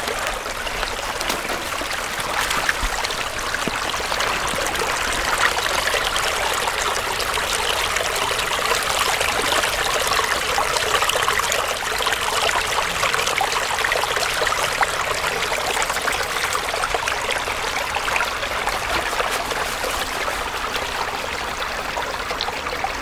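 Small woodland creek running over stones: a steady trickling, splashing flow of water.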